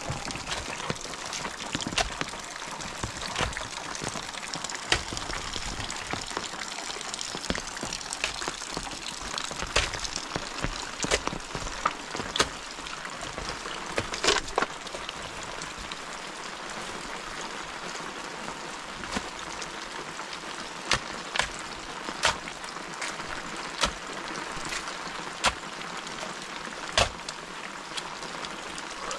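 Steady rain falling, with sharp single drips landing close by at irregular intervals, every second or two.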